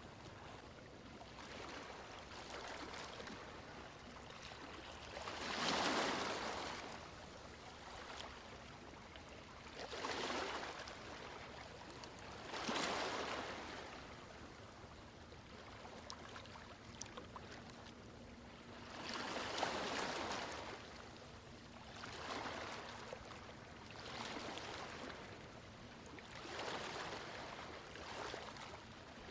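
Ocean waves washing onto a shore, the surf swelling and falling back every few seconds.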